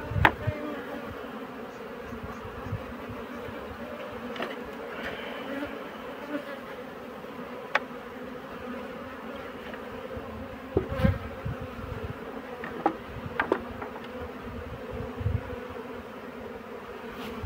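Honey bees buzzing in a steady hum as they fly in and out of a hive entrance fitted with a pollen trap, with scattered sharp clicks and a few low thumps, the loudest near the start and about eleven seconds in.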